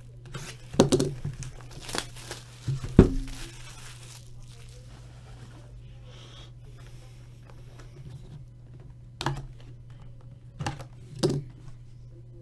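Plastic shrink-wrap crinkling and tearing as it is stripped off trading-card hobby boxes. It comes in a few sharp bursts, with a quieter stretch in the middle, over a steady low hum.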